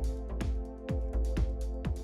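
Background music with a steady beat: a deep kick drum about twice a second over held chords.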